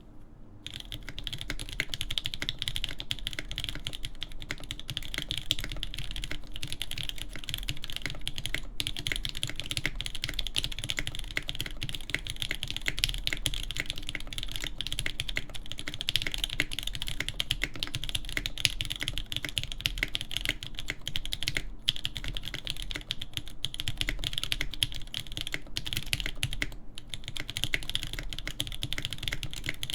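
Fast, continuous typing on a custom mechanical keyboard: a polycarbonate-cased Hineybush TKL One with a full POM plate, lubed Durock L7 linear switches and GMK keycaps. The keystrokes start about half a second in and run on with a few brief pauses.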